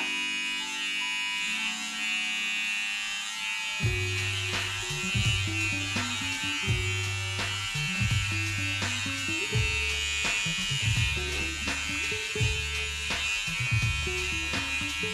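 Electric hair clippers buzzing steadily during a haircut. Background music with a bass line and a steady beat comes in about four seconds in.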